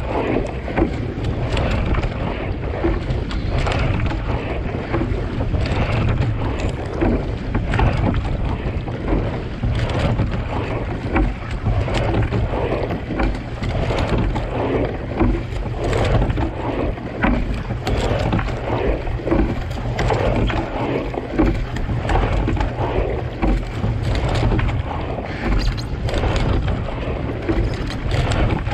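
Water rushing and splashing along a racing single scull, with a splash from the sculling oars roughly every two seconds, while wind buffets the camera's microphone as a steady low rumble.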